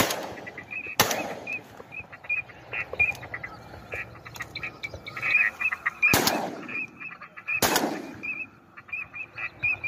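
Three shotgun shots, about a second in and then two about a second and a half apart after six seconds, each with a trailing echo. Between them ducks keep up a quick series of short, high calls.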